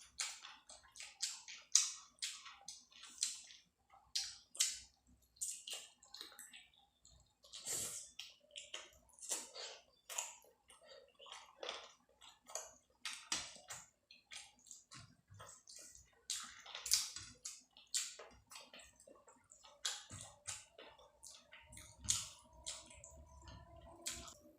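Close-miked chewing and wet mouth sounds of a person eating curry and rice: an irregular run of short smacks and clicks, several a second.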